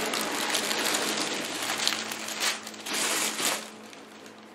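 Tissue paper crinkling and rustling as it is pulled out of a cardboard box of packing peanuts, with short crackly bursts, dying down after about three and a half seconds.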